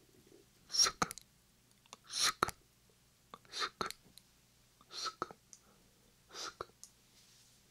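Whispered "sksk" ASMR trigger sounds made with the mouth right against a binaural microphone: five short paired hisses, one pair about every second and a half, with small wet mouth clicks.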